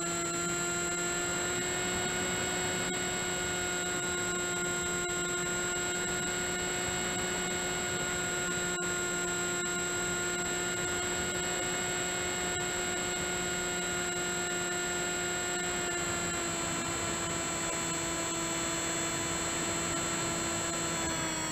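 Electric motor and propeller of an FMS Red Dragonfly RC plane in flight, heard from a camera mounted on the plane: a steady whine over rushing air. The pitch eases down slightly about sixteen seconds in and again near the end as the throttle comes back.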